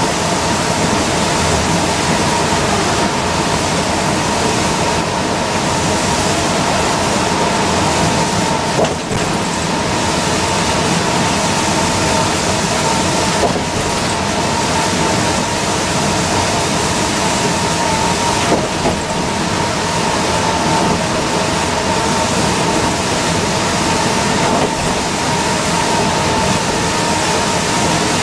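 Inside an Orion V diesel transit bus cruising at highway speed on a wet road: a steady roar of engine and tyres on wet pavement, with a constant whine and a few faint clicks from the windshield wipers.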